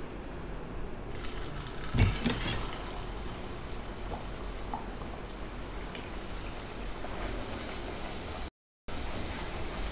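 A puri deep-frying in hot oil in a steel kadai, with a steady sizzle. About two seconds in, the metal slotted spoon knocks and clinks against the pan as it presses the puri down to make it puff.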